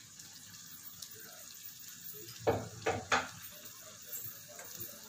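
Chicken and onion frying gently in a nonstick pan with a faint sizzle, and three light knocks of kitchenware close together about two and a half to three seconds in.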